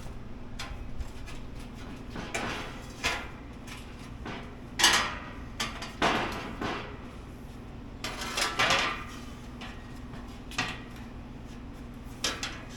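Metal filler plate being knocked straight and handled: irregular metallic clanks and knocks, a dozen or so spread unevenly, the sharpest about five and six seconds in.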